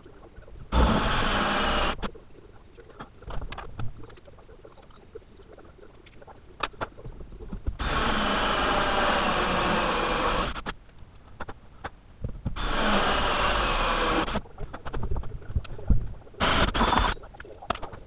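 Cordless drill boring holes in a door for a deadbolt, run in bursts: about a second near the start, about three seconds in the middle, two seconds a little later, then a few short blips near the end, with clicks and handling noises between.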